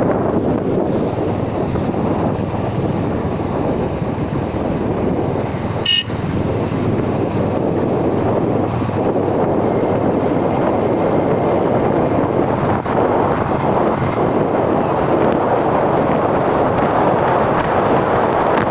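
Steady rushing noise of a vehicle driving along the road, with wind buffeting the microphone. There is one short, sharp click about six seconds in.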